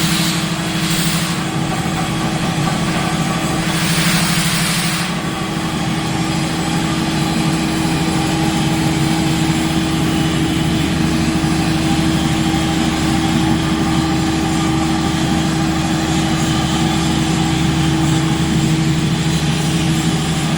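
KC-6 ammonia refrigeration compressor running steadily with a low, even hum and a fast regular beat. Two short bursts of hiss come at the start and about four seconds in.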